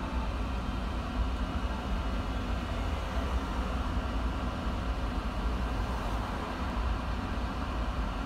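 Steady low hum inside the cab of an Okayama Electric Tramway streetcar standing still, with faint steady whining tones from its equipment and road traffic passing.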